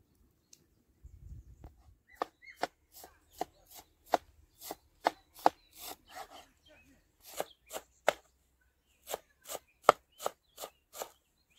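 Large wide-bladed knife chopping fresh green herbs on a wooden cutting board: a run of sharp, irregular knocks of the blade on the wood, about two or three a second, starting about two seconds in.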